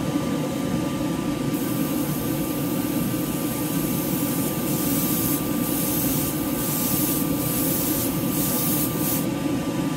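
Airbrush spraying 2K clear coat in a series of short hissing passes, starting about a second and a half in and stopping near the end, over the steady rush of a spray booth's exhaust fan.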